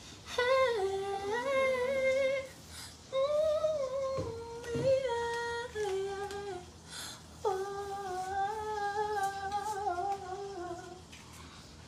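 Someone humming a tune in a few phrases of long, held notes with short breaks between them.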